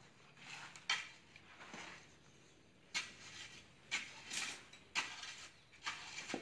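Steel rebar being tied with wire by hand: scattered sharp metallic clinks and taps of tools and wire against the bars, roughly once a second, over a faint hiss.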